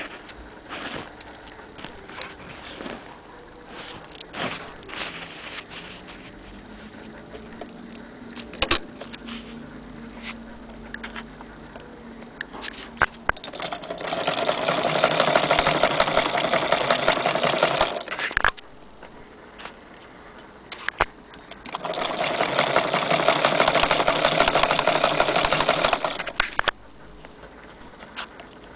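Antique Victorian hand-crank sewing machine running in two spells of about four to five seconds each, a dense rapid ticking of the stitching mechanism. The first begins about halfway through and the second near the end, with scattered clicks and knocks before and between them.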